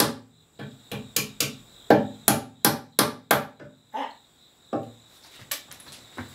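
Claw hammer striking a wooden wedge to drive it into a split tenon in a wooden chair seat: a run of about nine quick blows at roughly three a second, then a few slower, lighter taps.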